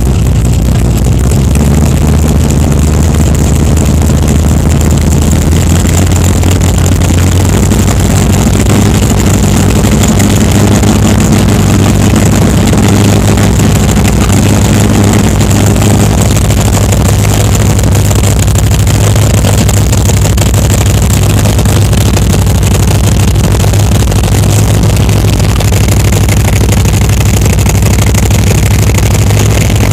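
De Tomaso Pantera's V8 engine running loud and steady, its low note rising slightly about eight seconds in.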